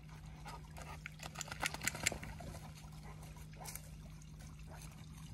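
A dog snuffling and rustling in grass and leaves, with a quick run of clicks and scuffs about one and a half to two seconds in and another scuff near the end, over a steady low hum.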